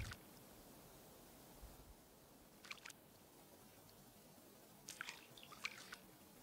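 Near silence with a few faint small splashes at the lake surface: a short pair a little under three seconds in and a longer run of little splashes near the end, where small trout are nibbling at the bait.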